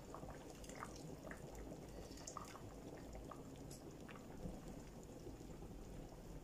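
Faint, steady bubbling of a pot of soup thickened with cocoyam paste at the boil, with scattered small pops. Palm oil is poured into it in a thin stream.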